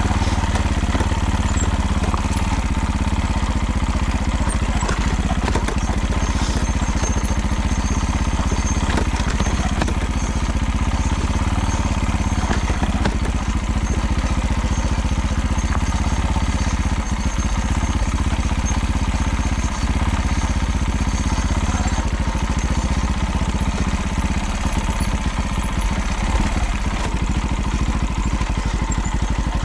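Motorcycle engine running steadily, with a fast rattling clatter over it: the unexplained abnormal rattle the bike has developed.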